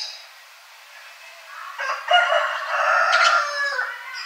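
A rooster crowing once, a drawn-out call of about two seconds starting a little under two seconds in.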